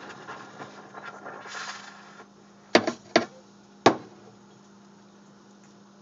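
Rancilio Silvia steam wand's rattling hiss through milk, the unexplained steaming noise, dying away about two seconds in. Three sharp knocks follow, then only a low steady hum.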